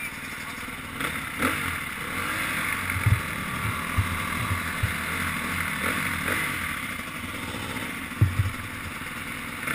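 Dirt bike engines idling, the nearest a KTM 350 XC-F four-stroke single, with a few brief low thumps about three, four and eight seconds in.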